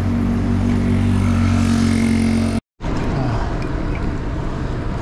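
Street traffic: a nearby motor vehicle's engine running with a steady low hum, cut off abruptly by a brief gap about two and a half seconds in, then more traffic and road noise with a short falling engine note.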